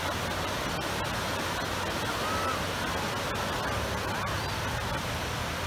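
Small waves breaking and washing up onto a sandy beach: a steady rush of surf, with faint distant voices now and then.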